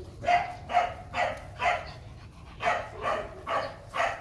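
Four-month-old Rottweiler puppy barking in play, about two barks a second: four barks, a short pause, then four more.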